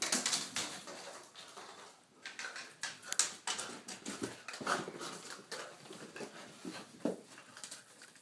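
A French bulldog carrying a plastic hula hoop in his mouth, the hoop scraping and knocking irregularly over wood floor and carpet, mixed with sounds from the dog itself.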